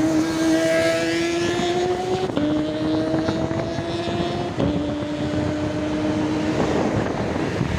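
A motor vehicle engine accelerating through the gears over a steady road rumble. Its pitch climbs slowly and drops sharply at two gear changes, about two and four and a half seconds in, then fades near the end.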